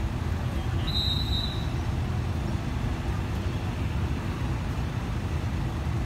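Passenger coaches of an express train rolling slowly along the track, a steady low rumble of wheels on rail, with a brief high-pitched squeal about a second in.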